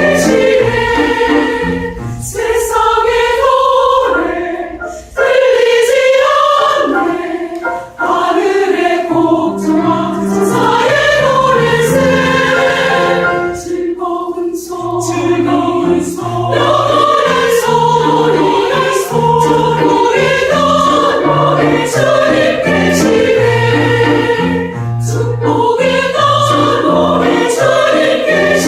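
Church choir singing a Korean gospel anthem in full voice, in phrases with brief breaks about 5 and 8 seconds in, over sustained low accompaniment notes.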